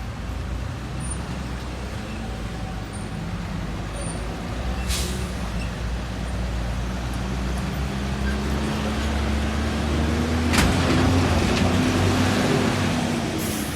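A large bus's engine running close by and growing louder, with short sharp air hisses from its air brakes about five seconds in, around ten and a half seconds in, and just before the end.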